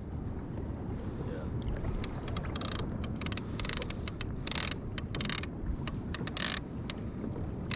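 Water splashing and lapping against a fishing kayak in irregular short bursts, over a steady low rumble of wind on the microphone.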